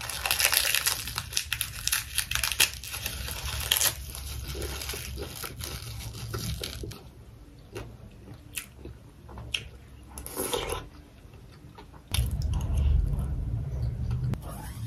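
Close-miked eating: loud, crisp crunching for the first few seconds as a roasted seaweed-wrapped bite is bitten and chewed, then quieter chewing with a few sharp spoon clicks. A louder low rumble comes in about twelve seconds in.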